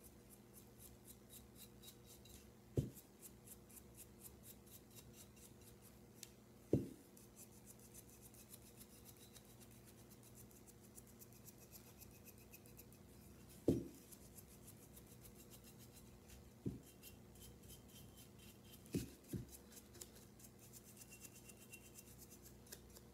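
Stiff flat paintbrush dry-brushed back and forth over a ceramic figurine: faint, rapid scratchy bristle strokes, with a few soft knocks as the piece is handled.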